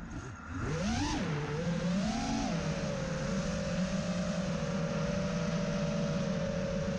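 A five-inch FPV freestyle quadcopter's brushless motors and three-blade props whining, recorded on board. The whine drops at the start as the quad flips inverted, rises sharply about a second in, swells again around two seconds, then settles into a steady hum.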